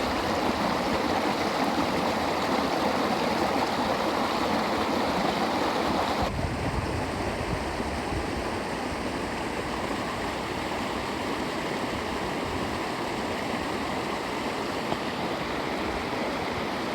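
Waterfall water rushing steadily, a continuous splashing hiss; about six seconds in the sound abruptly changes character, becoming duller with more low rumble.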